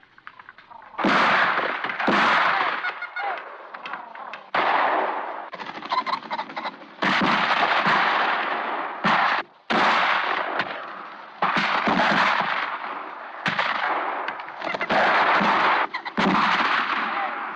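Hunting shotguns firing in a driven shoot, about a dozen shots, some two in quick succession, each dying away, on an old film soundtrack. The guns are killing rabbits and pheasants.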